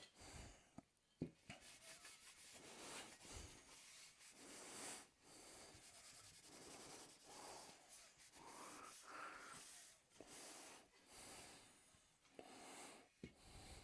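A cloth wiping over primed motorcycle mudguards with wax and grease remover: faint repeated rubbing strokes, with a sharp click about a second in.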